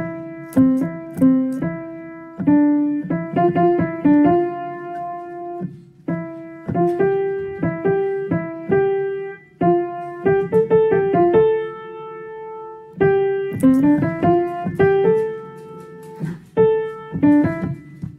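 A piano played by hand: a simple melody picked out note by note in short phrases, with a few lower notes under it and one longer held note about halfway through.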